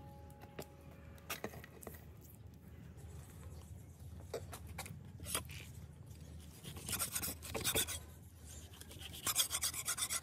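Cleaver slicing through cooked beef on a chopping board: scattered single cuts, then runs of quick strokes about two-thirds of the way in and again near the end.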